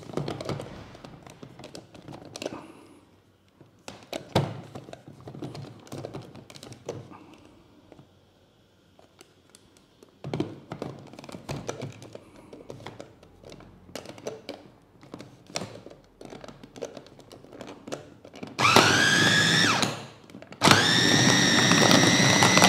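Electric food chopper run in two bursts near the end. Its motor spins up with a rising whine and holds steady, stops briefly, then runs again, chopping ground fish with ice into bakso paste. Before that, scattered knocks and clicks as the chopper is handled.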